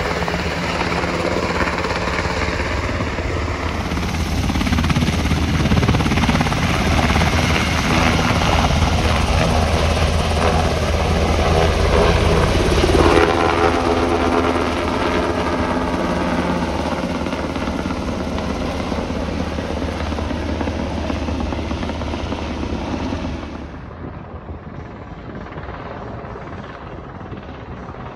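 UH-60 Black Hawk helicopter's main rotor and twin turboshaft engines running as it flies low past, loudest around the middle. Near the end the sound drops suddenly to a fainter, more distant one as the helicopter is high overhead.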